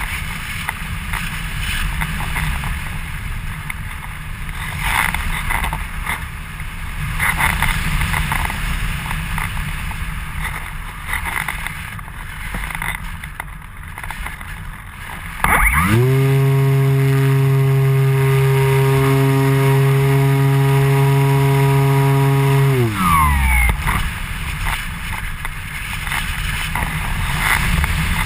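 Airflow rushing over a model glider's onboard camera in flight. About halfway through, the glider's motor and propeller start up, run at a steady pitch for about seven seconds, then wind down with a falling pitch, and the wind rush returns.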